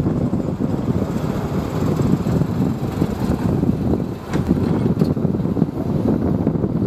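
Airbus A330-300 airliner on final approach, its jet engines a steady low rumble, with wind buffeting the microphone.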